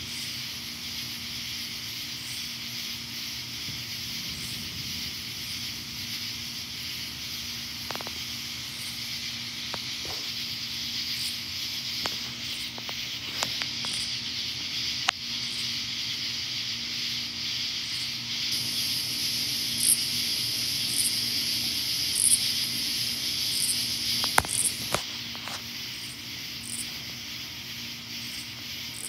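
A chorus of night insects keeps up a steady high buzzing. About two-thirds of the way through, a higher pulsing call joins in, repeating about once a second. A low steady hum runs underneath, with a few sharp clicks.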